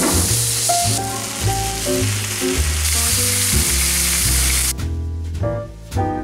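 Bacon and hash browns sizzling loudly on a hot Blackstone flat-top griddle. The sizzle cuts off suddenly near the end, leaving only background music with a plucked double-bass line.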